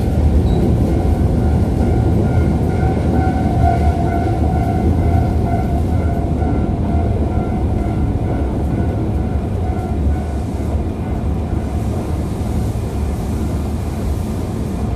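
Osaka Metro 25 series subway train running through a tunnel, heard from the front car: a steady low rumble of wheels on rail, with a faint steady whine that fades out about ten seconds in.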